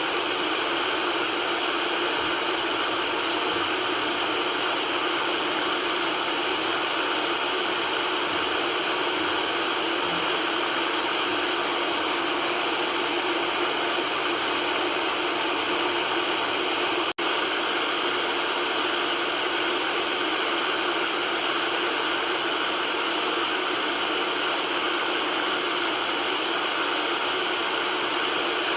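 Steady white noise: an even, unchanging hiss with little bass, broken by a momentary dropout about 17 seconds in.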